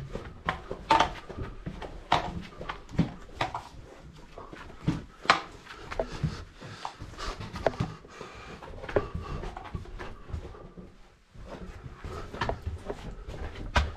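Irregular scrapes, knocks and rustles of a caver moving through a tight rock passage: hands, clothing and gear brushing and bumping against the rock and dirt close to the microphone.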